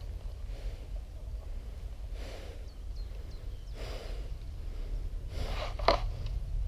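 A person breathing heavily close to the microphone: about four breaths roughly a second and a half apart, over a steady low rumble. A short, sharp sound comes near the end.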